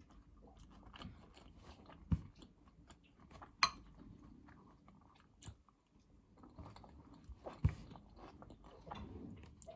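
A person chewing a mouthful of food with the mouth closed, close to the microphone: soft wet mouth sounds and small clicks. A few sharper clicks stand out about two, three and a half and nearly eight seconds in.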